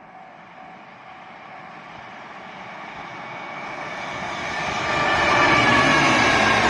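Freight train approaching on the line, growing steadily louder for about five seconds, then running loud as it comes close.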